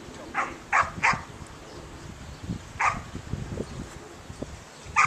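A dog barking in short, sharp barks: three in quick succession near the start, one about three seconds in, and another at the end.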